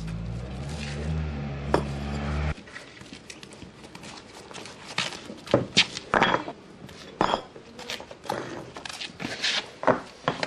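Clay paving bricks being laid by hand, knocking and clinking against each other in a run of sharp, irregular clacks. Before that, a low drone that cuts off abruptly about two and a half seconds in.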